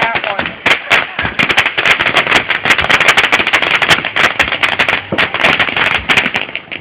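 Fireworks crackling and popping in a rapid, dense string of sharp reports, like a string of firecrackers, cutting off suddenly near the end.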